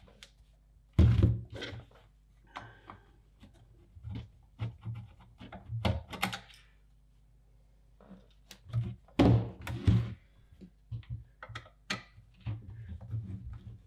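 Handling knocks from the opened metal chassis of an SM Pro Audio M-Patch 4M monitor controller being turned and set down on a desk: irregular clunks and clicks, loudest about a second in and again around nine to ten seconds.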